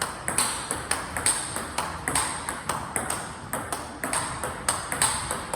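Table tennis rally: a celluloid-plastic ball struck with topspin drives off a racket faced with tacky Chinese Hurricane 3 rubber, alternating with bounces on the table, about three sharp clicks a second.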